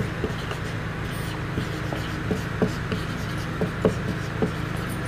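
Marker pen writing on a whiteboard: a string of short, irregular scratches and taps as the tip forms letters, over a steady low hum.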